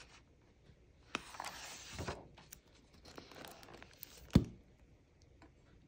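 A picture book being handled and closed: pages and cover rustle and slide, then one sharp thump a little past four seconds in.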